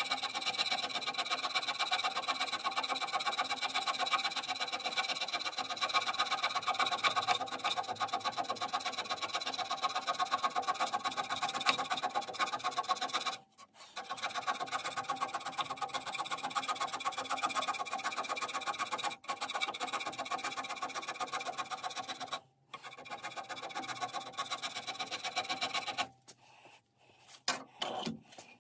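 Hand scraper taking quick, repeated roughing strokes across the cast-iron toolpost seat of a lathe topslide, with a ringing tone from the metal. The scraping breaks off briefly three times and stops shortly before the end.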